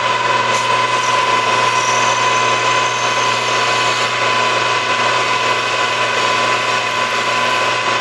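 Milling machine running under power as a 1/8-inch drill bores a pilot hole into a small speaker-jack hub: a loud, steady whine.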